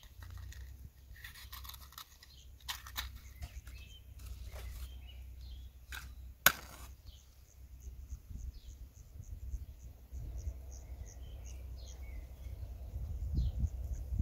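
Matches being struck against the side of a matchbox: a scattering of short, sharp scratches, the loudest about halfway through, to light crumpled newspaper kindling.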